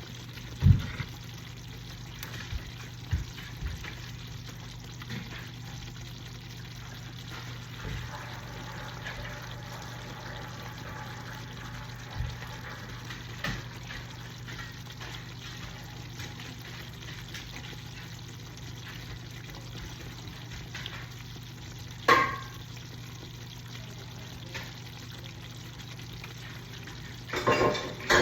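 Kitchen cooking sounds: food sizzling in a pan over a steady low hum, with occasional knocks and clatters of utensils and cookware. The loudest clatters come about 22 seconds in and just before the end.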